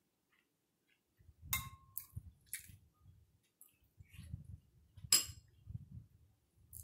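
Ceramic soup spoon clinking against a bowl, one clink ringing briefly, followed by chewing and slurping as a spoonful of soup is eaten. A sharper clink comes about five seconds in.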